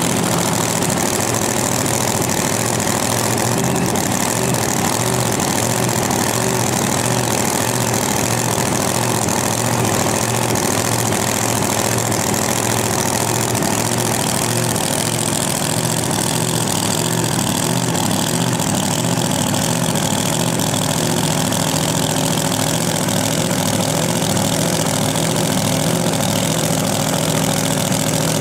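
Supercharged drag-race V8 idling steadily at a constant, loud level, with no revving.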